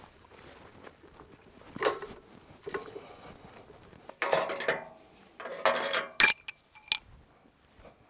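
Aluminium sawmill frame parts being handled and assembled: a few knocks and scrapes, then a loud ringing metal clink about six seconds in and a smaller one just after.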